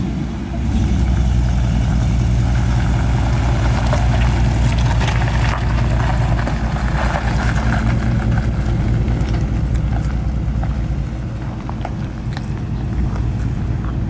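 Lifted pickup truck's engine running as it drives, a loud, steady low-pitched sound.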